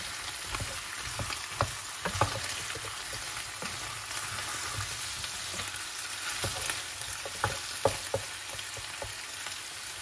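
Green banana chunks and minced meat sizzling in a non-stick saucepan on a gas flame, stirred with a wooden spoon. The spoon knocks sharply against the pan a few times over the steady sizzle.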